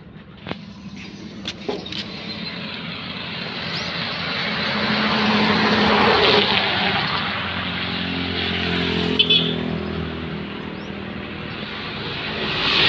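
A motorcycle passing on a paved highway, its engine and tyre noise swelling to a peak about six seconds in and then fading. Another vehicle approaches near the end. There are a few sharp clicks at the start.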